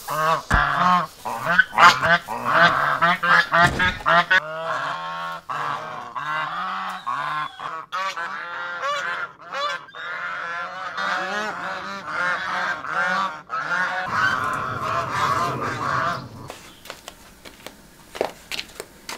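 A small flock of white domestic ducks quacking over and over, their calls overlapping, until they fall quiet near the end.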